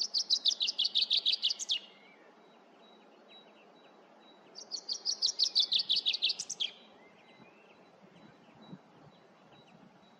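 Male common chaffinch singing: two song phrases about four seconds apart. Each is a rapid run of notes that drops slightly in pitch and ends in a short flourish.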